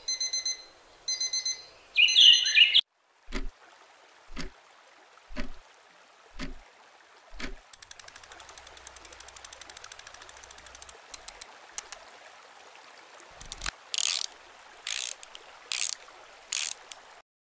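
Clockwork sounds: slow ticking about once a second, then the fast ratcheting clicks of a key winding a mechanism, then four louder ticks about a second apart.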